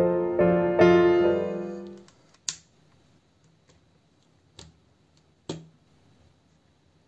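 Piano music for the first two seconds, fading out. Then plastic building bricks being handled and snapped together, with three sharp clicks spread over the next three seconds and fainter ticks between.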